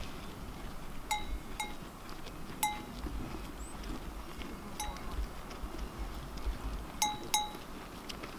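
A large metal sheep bell clanking irregularly as the animal moves, about six strikes with the same ringing tone, two of them close together near the end.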